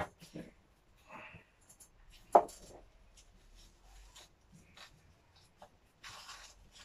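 Small handling sounds of repotting: a plastic plant pot and potting soil rustling and scraping under the hands. There is one sharp knock about two and a half seconds in and a stretch of rustling near the end.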